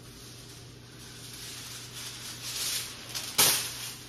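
Aluminium foil being pulled off the roll and handled, crinkling, with a sharp loud crackle about three and a half seconds in as the sheet comes free.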